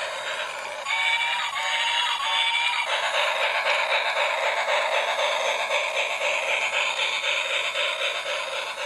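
Toy steam locomotive's electronic sound effects from its small built-in speaker: a short three-note whistle-like tune, then a steady hissing chug with quick pulses.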